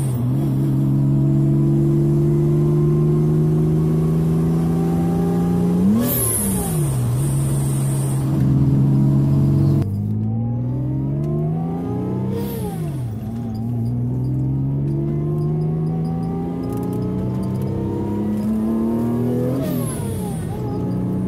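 Supercharged Mazda MX-6 engine accelerating through the gears, heard from inside the cabin. Its pitch climbs steadily and drops at each of several upshifts. Each shift brings a short sharp hiss as the Greddy Type S blow-off valve vents.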